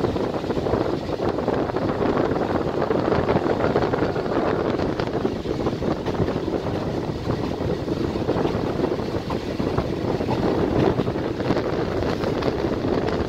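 A passenger train running steadily, with wind buffeting the microphone.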